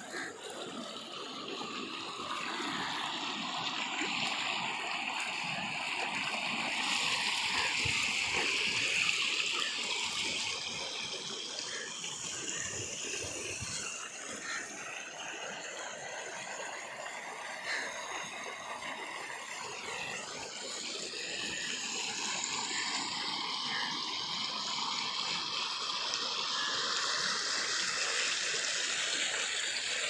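Fast water flowing along a concrete-lined channel: a steady rushing noise that grows louder in two long stretches.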